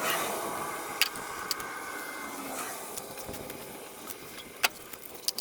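A few sharp, separate clicks and taps of hand tools working on the spark plugs, over a faint steady background hiss.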